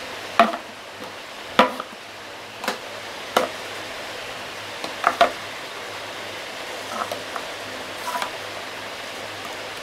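Small plastic eye-makeup products being handled and set down in a drawer: several light clicks and knocks spread irregularly over a steady faint hiss.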